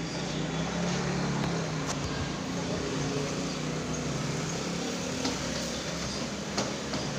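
Steady background noise with a low hum, like a passing motor vehicle, and a few faint clicks.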